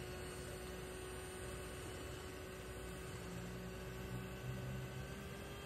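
Electric mixer running steadily and faintly, its beaters whipping egg whites and sugar into a foam.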